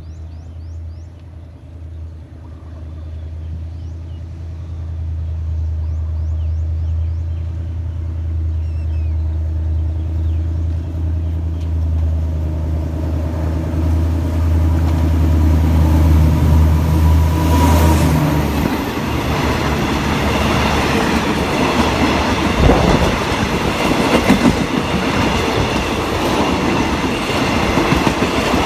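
An Alsthom diesel-electric locomotive hauling a passenger train approaches and runs through the station without stopping. Its low engine drone grows steadily louder until the locomotive passes about eighteen seconds in. The passing coaches follow with rail rumble and wheel clatter over the joints.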